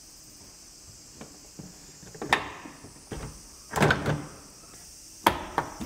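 Toyota Prius tail-lamp assembly being pressed into the body by hand: scattered plastic clicks and knocks, with loud snaps about two seconds in, around four seconds in and just after five seconds as its plastic clips seat.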